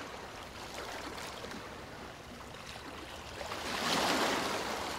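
Sea water sloshing and lapping, with small splashes, and a louder surge of wash about four seconds in.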